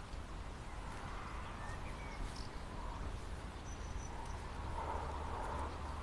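Open-air pasture ambience: a steady low rumble and hiss with a few faint, short bird chirps.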